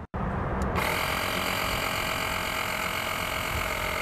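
Cordless tire inflator's small electric compressor running steadily on a truck's rear airbag, filling it toward a 5 psi setting. The sound sets in right at the start and fills out with a hissing buzz under a second in.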